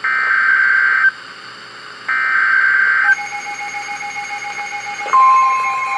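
NOAA Weather Radio Emergency Alert System broadcast: the end of the SAME digital header, two one-second bursts of buzzing data tones a second apart, then fainter steady tones and, about five seconds in, the loud steady weather-radio alert tone near 1 kHz that signals a warning is about to be read.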